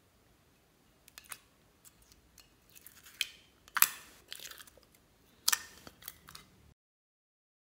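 Clear slime squished and pulled up from a glass dish by hand, making irregular sticky crackles and pops, with two louder pops near the middle. The sound cuts off suddenly near the end.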